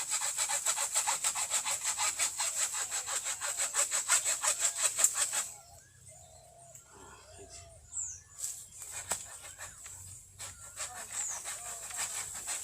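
Hand saw cutting wood with quick, even back-and-forth strokes that stop about five and a half seconds in. Faint bird chirps follow.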